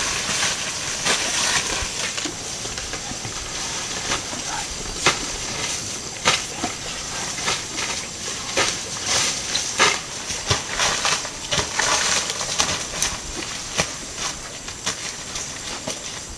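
Asian elephants feeding on cut plant stalks: irregular sharp cracks and crunches as stalks snap and dry litter rustles underfoot, over a steady high-pitched hiss.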